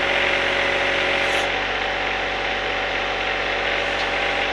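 John Deere 1025R sub-compact tractor's three-cylinder diesel engine running steadily while its backhoe is worked.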